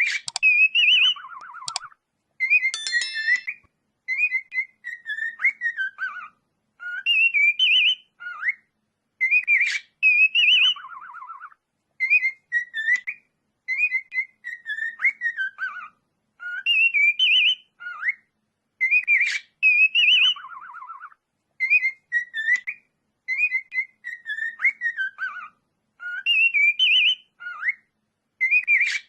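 A whistled phrase of rising and falling notes, repeated over and over about every two seconds, many repeats ending in a lower warbling trill.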